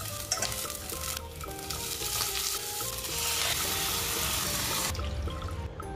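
Ginger, garlic and dried anchovies sizzling as they fry in a hot stainless steel pot; the sizzle grows louder in the middle and cuts off suddenly about five seconds in. Light background music plays underneath.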